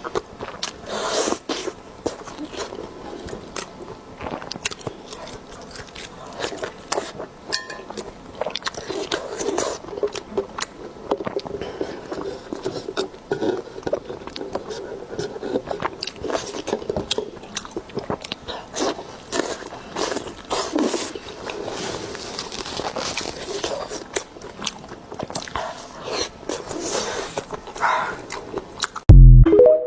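Close-miked eating: steady chewing and biting with crunchy, clicking mouth sounds. A single loud thump comes near the end.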